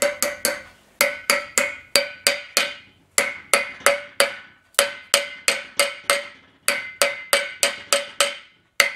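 Hammer tapping a new bearing cup into the top bore of a Willys CJ3A steering knuckle to seat it: quick ringing metal strikes, about four a second, in runs of five to seven with short pauses between.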